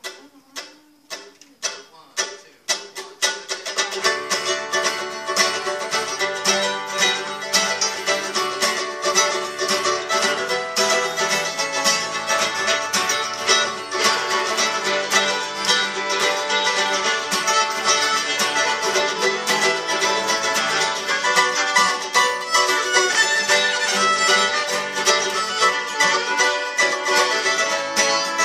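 Acoustic string band playing an instrumental tune on two acoustic guitars and a mandolin. It opens with a few evenly spaced picked notes, and the full band comes in about four seconds in, playing steadily.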